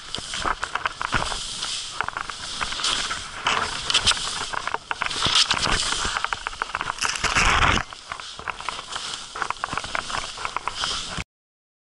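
Skis hissing and scraping through snow on a fast downhill run, a dense crackling rush with air noise on the camera microphone and a louder surge about seven seconds in. The sound cuts off abruptly near the end into silence.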